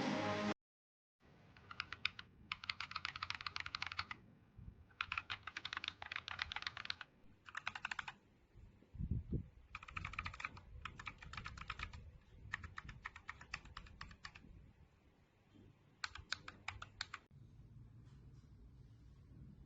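Typing on a mechanical keyboard fitted with Akko CS switches: several bursts of rapid key clacks separated by short pauses, with one dull low thump about nine seconds in.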